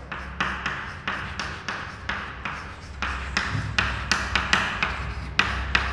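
Chalk writing on a chalkboard: an irregular run of sharp taps and short scratches as letters are chalked onto the board.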